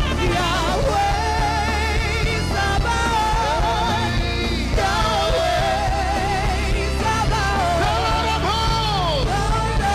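Live worship music: steady held chords and a low bass under a lead melody with strong vibrato and sliding pitch.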